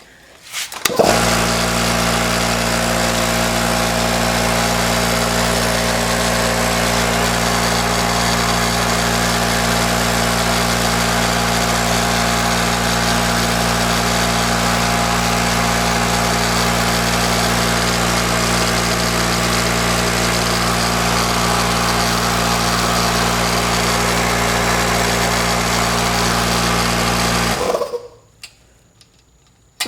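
Hitachi electric air compressor switched on about a second in, running loud and steady, then shut off abruptly near the end. This is a test run after a check-valve replacement, which the owner judges still doesn't seem to be working.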